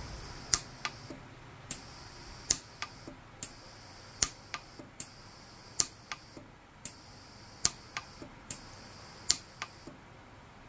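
Orion 150s pulse arc micro TIG welder firing a run of sharp snapping pulses, roughly one to two a second at uneven intervals, as the tungsten electrode discharges against the seam of a platinum ring to smooth out the weld.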